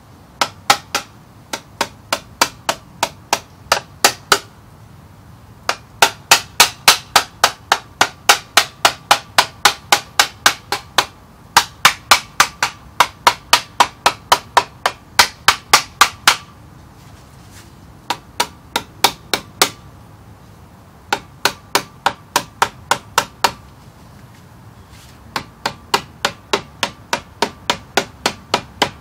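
A hammer striking a stainless steel skeg guard to drive it onto a boat's lower-unit skeg. It comes in quick runs of sharp metallic taps, about three or four a second, with short pauses between runs and a ringing note on many of the hits.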